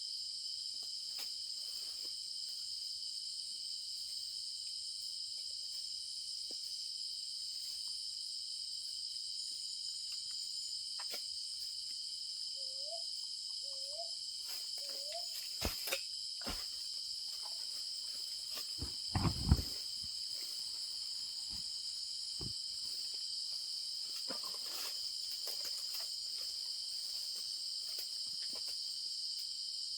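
Steady high-pitched chorus of forest insects, with short rising hoots from an owl, three in a row about thirteen seconds in. Brief knocks about sixteen seconds in, and the loudest cluster about nineteen seconds in.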